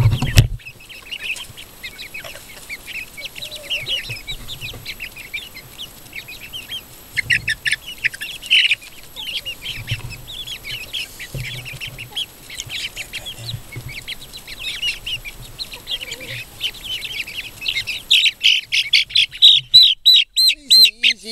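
A flock of young chickens peeping: many short, high chirps overlapping throughout, building to a fast run of loud repeated peeps near the end. A sharp bump at the very start and a few dull low thuds.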